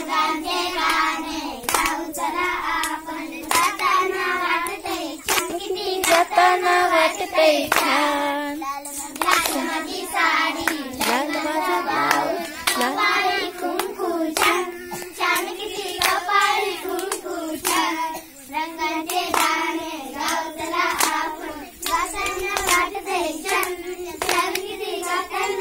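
A group of young girls sings a Marathi children's song about colours in unison, clapping their hands in a steady rhythm of about two claps a second.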